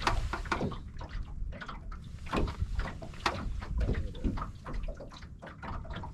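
Water sloshing and lapping against a boat hull, with scattered small knocks and clicks over a low rumble.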